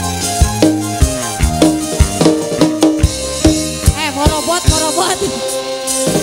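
Live burok band music in dangdut style: regular drum strokes under sustained guitar and keyboard tones, with a bending, wavering melody line about four seconds in.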